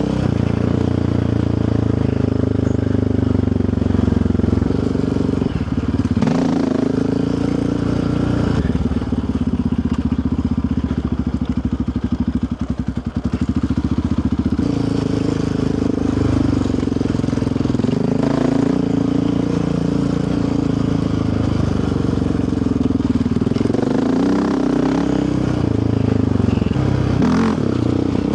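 Yamaha Raptor 700R's single-cylinder engine running under changing throttle, its pitch rising and falling. About halfway through it drops to a slow low putt with the throttle off, then picks up again.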